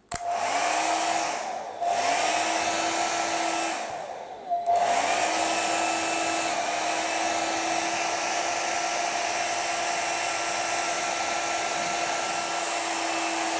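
Ambrane AHD-21 1600 W hair dryer running, its fan motor whining over a steady rush of air. Its motor note dips and climbs back up twice in the first few seconds as it is switched between settings. It then runs steadily on its higher speed, step 2, where the motor sounds heavy.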